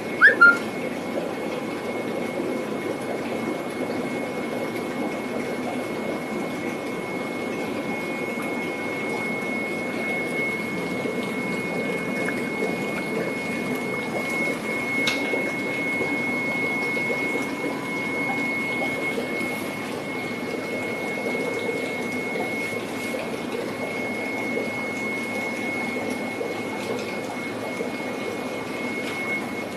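Steady rush of water and pump noise from aerated aquarium tanks, with a faint constant high whine. A brief, loud, high squeak near the start.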